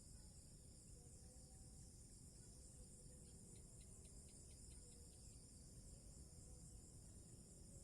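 Faint, steady, high-pitched chorus of insects chirring. About halfway through comes a brief run of roughly nine quick clicks, four or five a second.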